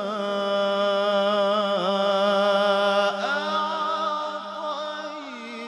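A young man's solo voice reciting the Quran in melodic tajwid style into a microphone, drawing out long ornamented notes with a wavering pitch. The melody shifts to a new pitch about three seconds in.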